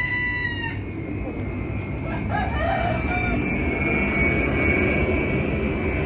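A rooster crows once, a short held call that ends within the first second. Then a steady motor drone with a faint high whine builds and grows louder.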